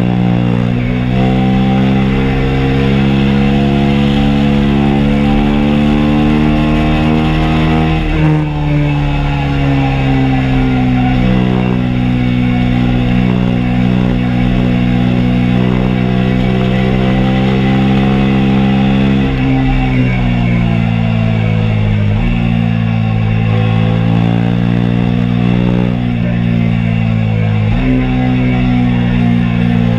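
KTM RC 390's single-cylinder engine under way on track, heard from onboard: the pitch climbs steadily while accelerating, drops sharply at an upshift about eight seconds in, then holds steady. After twenty seconds the engine note falls and steps down as the bike slows, with a sudden jump in pitch near the end, with wind noise throughout.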